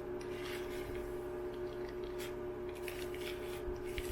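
Wet hair coated in deep conditioner being detangled: a run of irregular brushing or rubbing strokes through the hair, over a steady low hum.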